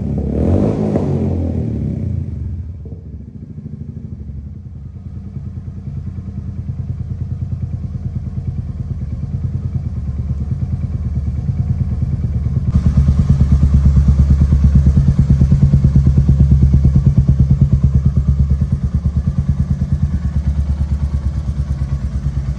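Royal Enfield Meteor 350's single-cylinder engine through a straight-through Gursewak 'gun shot' exhaust with the dB killer removed. It revs briefly, drops back to idle about two seconds in, and then idles with an even, steady beat. About halfway through it grows louder and sharper.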